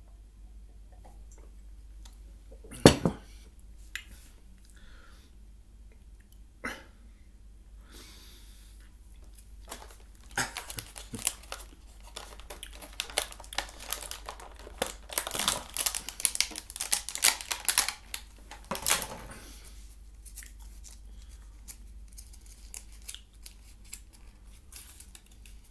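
A single sharp knock about three seconds in and a few softer clicks, then plastic food packaging crackling, crinkling and tearing for about ten seconds as it is opened by hand.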